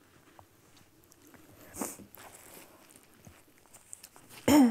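A quiet pause with a few faint small clicks and a brief rustle about two seconds in, then a short vocal sound from a person near the end, with a slightly falling pitch.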